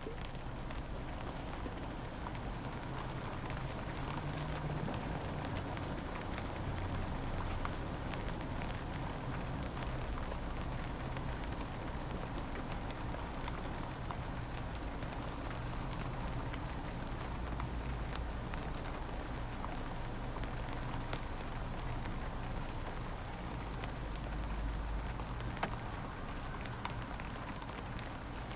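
Wood fire burning in a chulah, an earthen cookstove, crackling continuously with many small pops over a low rumble. One louder pop comes near the end.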